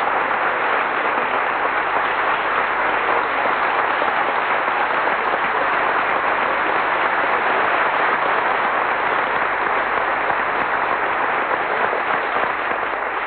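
Large audience applauding steadily at the end of a lecture.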